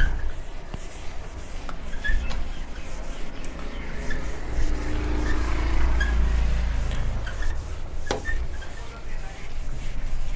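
Handheld eraser rubbing back and forth across a whiteboard, wiping off written marker text in continuous strokes, with a single knock about eight seconds in.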